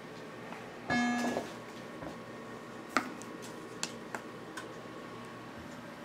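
A short electronic beep about a second in, then one sharp click and a few lighter clicks, over a steady low hum from the room's machines.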